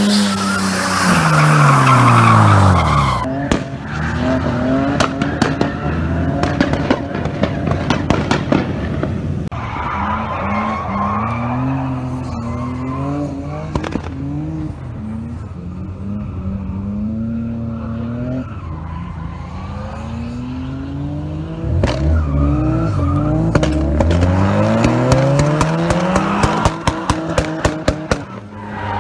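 Nissan 240SX drift car being driven hard: the engine revs rise and fall repeatedly against tire squeal. Strings of sharp exhaust pops and bangs from its anti-lag and 2-step limiter come a few seconds in and again near the end.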